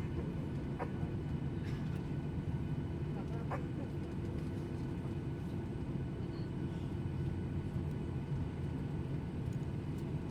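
Jet airliner cabin noise: a steady low rumble of engines and airflow, with a few faint short sounds in the first few seconds.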